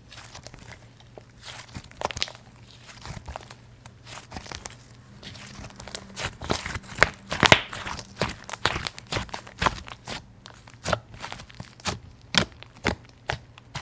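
White fluffy slime being stretched, squeezed and pressed by hand, giving off irregular crackles and small pops that come thickest about halfway through.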